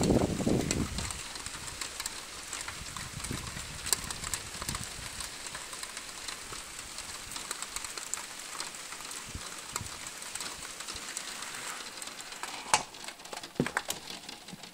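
Steady rainfall, with many separate drops pattering and ticking on a surface and a few sharper drips near the end. A louder, deeper sound stands out in the first second.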